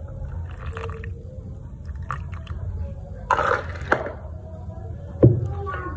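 Ice water poured from a jug into a glass mixing bowl of flour and meat batter, splashing into the dough, with a sharp knock a little after five seconds in.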